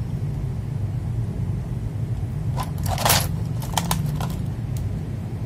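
A handful of short, sharp plastic clicks and taps past the middle, from PBT keycaps being pressed on an FL Esports MK870 mechanical keyboard, over a steady low hum.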